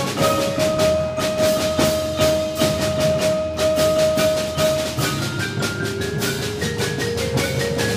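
Concert band of wind and percussion playing: a steady, driving percussion beat under a long held wind note, with lower parts stepping upward about five seconds in.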